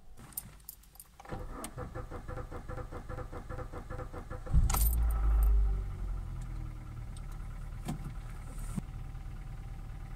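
A few clicks, then a Kia Ceed's starter cranking the engine in an even rhythm for about three seconds. The engine catches with a loud surge and settles into a steady idle near 1000 rpm. The car has a faulty crankshaft position sensor, logged as an active P0335 code.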